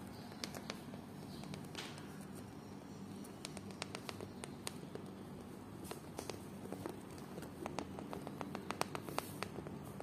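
A dwarf hamster biting and gnawing at its cage: quick runs of sharp clicks from its teeth on the cage, thickest about halfway through and again near the end. This is the cage-biting of an agitated hamster.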